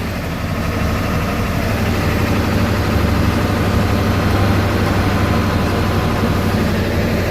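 Ford 7.3 Powerstroke turbo-diesel V8 idling steadily with a deep, even hum.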